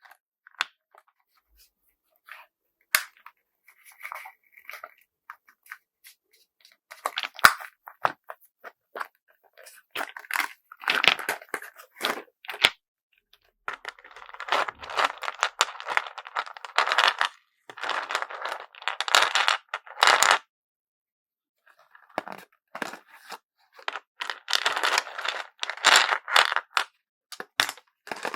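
Rustling, crinkling and tearing of packaging material, with sharp clicks and taps, as small handmade tetra-pack bead packets are handled and packed. The sounds come in short bursts separated by brief pauses.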